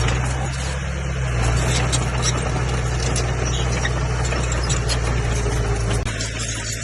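Komatsu bulldozer's diesel engine running steadily, with a deep hum and a broad mechanical noise over it; the sound dips briefly and changes about six seconds in.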